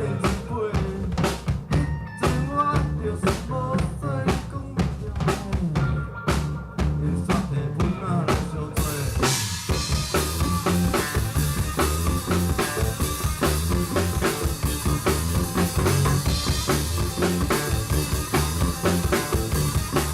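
Live rock band playing: bass and drum kit with sharp rimshot hits, then about nine seconds in the cymbals come in and the band plays fuller.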